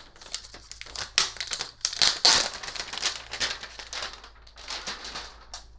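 Thin protective plastic film crinkling and crackling as it is peeled off and handled, in a dense string of irregular crackles and clicks.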